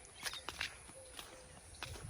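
Footsteps of people walking, sharp irregular steps about two or three a second, with a faint short chirp repeating in the background.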